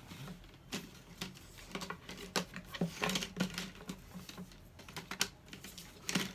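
Puzzle pieces being handled and set down on a hard surface: irregular light clicks and taps, closer together about three seconds in.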